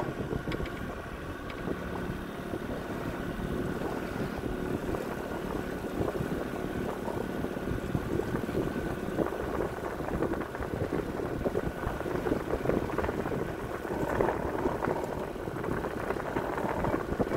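Boat motor running steadily in gear at low throttle, with wind buffeting the microphone.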